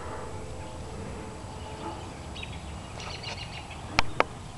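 Faint outdoor background with a few soft, high bird calls, then two sharp clicks close together about four seconds in.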